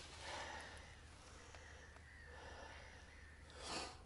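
Near silence: faint outdoor background hiss, with one soft breathy rush near the end.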